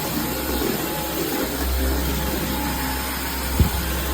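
Dyson V15 Detect cordless stick vacuum running steadily, with a single sharp knock about three and a half seconds in.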